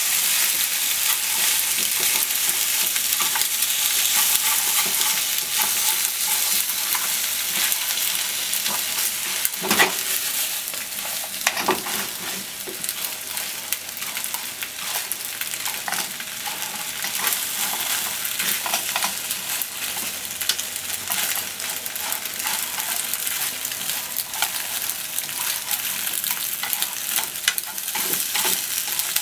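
Macaroni sizzling in a frying pan as it is stir-fried with ketchup, a spatula scraping and clicking against the pan as it is stirred. Two louder knocks of the spatula on the pan come about ten and twelve seconds in.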